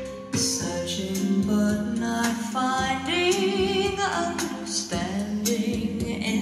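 A song with a singing voice over instrumental backing, played through a vintage Philips 22RH411 full-range speaker. About three seconds in the voice holds wavering notes with vibrato.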